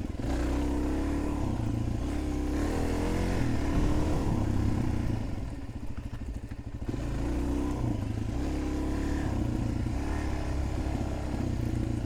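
Suzuki DR-Z400's single-cylinder four-stroke engine running as the dirt bike is ridden, its pitch rising and falling with the throttle. It eases off about five to seven seconds in, then picks up again.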